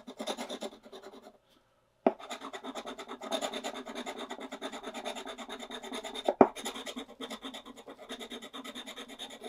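Scratching the coating off a 'match three' scratch-off game ticket: quick rasping strokes, broken by a short silent gap about a second in, then steady rapid scraping with a sharp tap about six seconds in.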